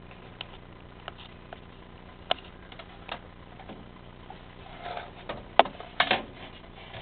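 Scattered light clicks and taps of handling, with a cluster of louder knocks about five to six seconds in, over a faint steady hum.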